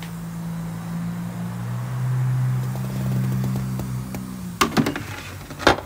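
Toyota Supra's plastic engine cover being pressed down onto its mounts: a few sharp clicks and knocks about four and a half seconds in, then one loud clunk just before the end. A steady low hum runs underneath and stops as the knocks begin.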